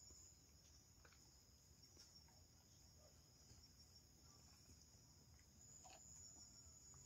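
Near silence, with faint, steady, high-pitched chirring of crickets in the background and a few faint gulps as a drink is swallowed.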